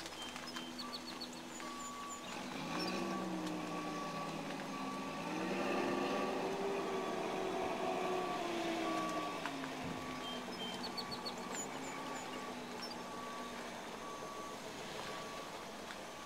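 A vehicle's reversing alarm beeping at an even pace, over the engine of the vehicle, which rises in pitch about three seconds in and falls back and fades after about ten seconds.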